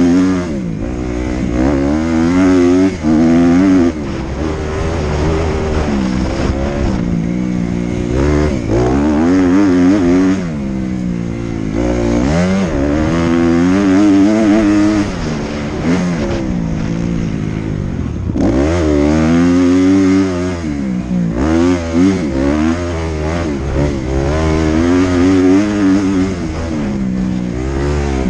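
Dirt bike engine revving up and falling back over and over as the rider works the throttle and gears along a trail, heard close up from the rider's helmet.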